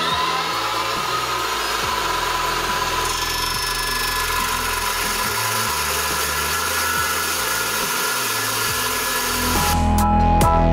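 14-inch chop saw with a Diablo Steel Demon cermet-tipped metal-cutting blade spinning up, then cutting into steel railroad rail with a steady, ringing cutting noise. Background music comes in near the end.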